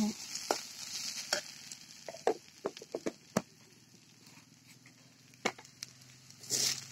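Metal spatula stirring and scraping shredded vegetables in a steel kadhai over a faint sizzle, with irregular clicks of the spatula against the pan and a louder scrape near the end.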